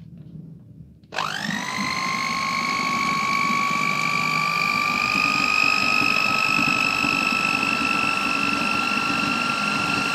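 Electric hand mixer switched on about a second in, whipping cream. Its motor whine jumps quickly up to speed, then creeps slowly higher in pitch as it keeps running.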